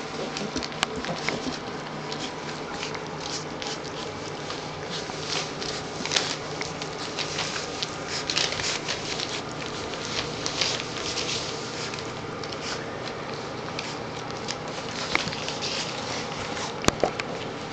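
Three-week-old Newfoundland puppies eating scrambled eggs from a stainless steel pan: a busy, irregular run of wet smacking and small clicks of mouths and paws against the metal.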